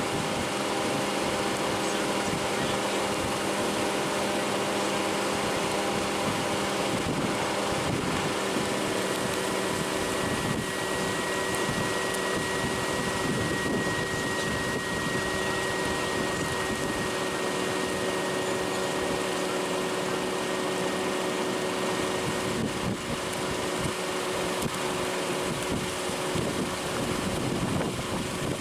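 Steady hum of a running vehicle's engine and ventilation fan, with a few held tones over an even rush of noise.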